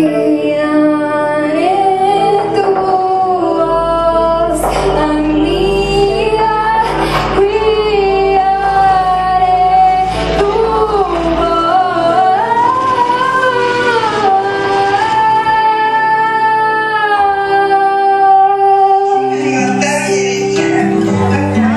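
Live music: a woman sings a slow melody with long held notes over keyboard accompaniment and sustained low bass notes. The voice falls away near the end.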